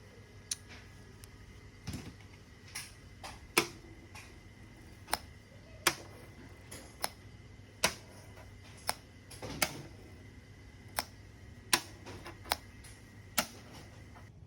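Sharp, irregular light taps on a car's sheet-metal body panel, roughly one a second with a short ring after some, as a dent is worked out without body filler.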